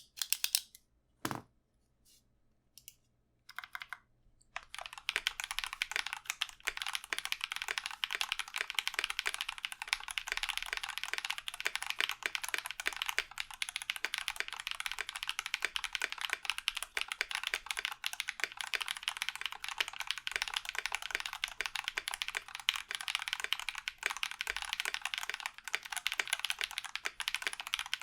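Typing on a Key65 mechanical keyboard with Holy Panda tactile switches lubed with Tribosys 3204 and PBT keycaps. A few separate keystrokes at first, then fast, continuous typing from about four and a half seconds in.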